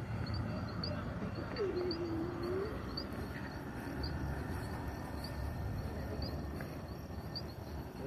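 Outdoor dusk ambience: a small animal's short, high chirp repeats several times a second at first, then more sparsely, over a steady low rumble.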